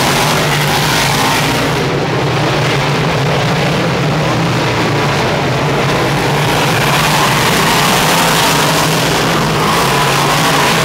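A pack of big-block V8 dirt Modified race cars running at speed around the track: a loud, steady engine drone without a break.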